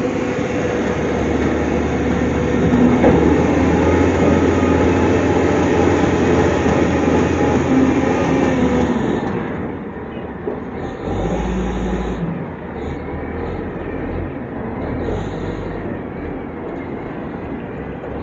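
SDLG wheel loader's diesel engine running hard as the machine works, with a heavy mechanical drone. After about ten seconds it drops to a quieter, more uneven running.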